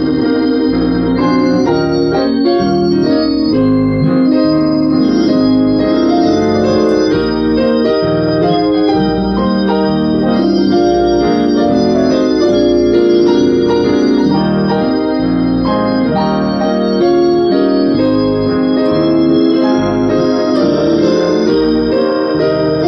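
Two-manual electric console organ played with both hands: sustained, full chords with a melody on top, changing chord about once a second at a steady volume.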